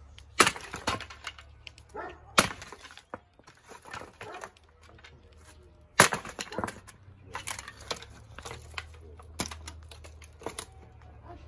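Sledgehammer smashing a wooden slatted crate apart: heavy blows with the crack of splitting wood and loose slats clattering. The three hardest blows land about half a second, two and a half seconds and six seconds in, with lighter knocks and rattling of pieces between.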